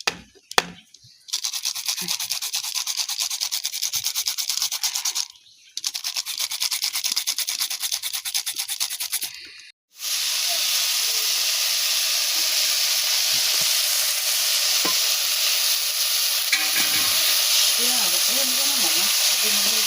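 Fast, even rubbing or scraping strokes in two runs with a short break between them. After a brief silence about ten seconds in, steady sizzling of food frying in a hot pan takes over.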